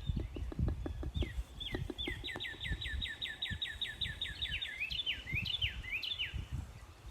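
A songbird singing clear downslurred whistles, then a fast even trill of about seven notes a second, then more slurred whistles near the end. Low thumps of footsteps or handling sound under the song in the first couple of seconds.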